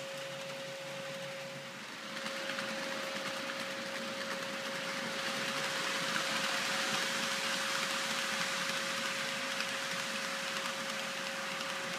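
Model-railway container freight train rolling past: a steady rattle of wheels on track over a constant thin hum, growing louder about two seconds in as the train comes close and staying up while the long string of container wagons goes by.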